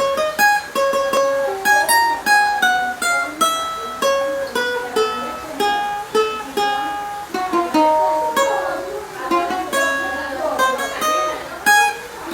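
Cavaquinho played solo: a melodic samba introduction picked one note at a time in quick runs.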